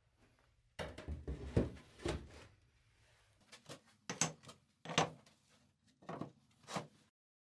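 Aerated concrete blocks and firebricks being set down and shifted on a workbench: a cluster of knocks and scraping about a second in, then about five separate knocks.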